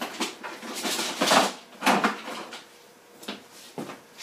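Irregular rustling and knocking of small objects being handled on a workbench: a handful of short bursts, the loudest about one to two seconds in.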